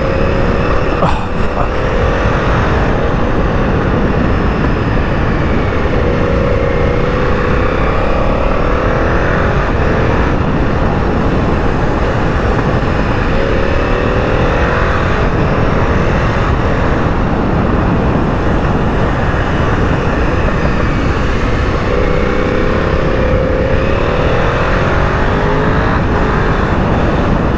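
KTM 990 Superduke's V-twin engine pulling the bike along, its pitch rising and falling a few times as it revs up out of bends and eases off, over heavy wind rush on the microphone.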